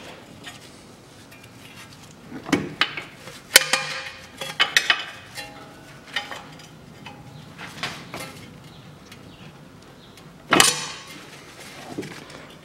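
Intermittent metallic clinks and knocks of a 22 mm spanner working the ball-joint nut loose on a front steering knuckle, with the loudest knock about ten and a half seconds in.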